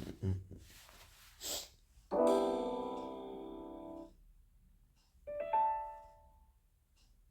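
Samsung Galaxy S21 Ultra notification tones played one after another: a brief noisy blip about a second and a half in, then a piano-like chord about two seconds in that rings and fades over about two seconds, then a shorter two-note chime about five seconds in.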